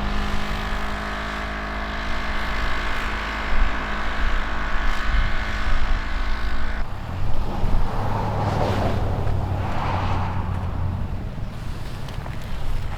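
Vehicle engine and road noise from a moving 4x4: a steady, even-pitched drone, changing abruptly about seven seconds in to a lower rumble with rushing swells.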